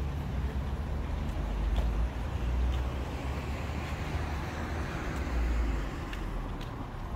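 Road traffic along a waterfront street, with wind buffeting the microphone as an uneven low rumble. A car's hiss swells and fades about halfway through.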